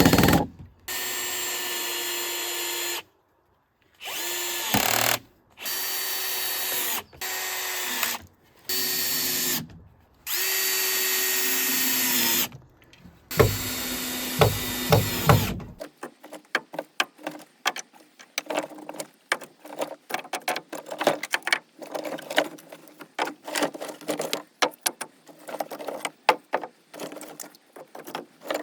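A power drill runs in about seven separate bursts of one to two seconds each, with short pauses between them. In the second half it gives way to quieter rapid, irregular clicking and clattering.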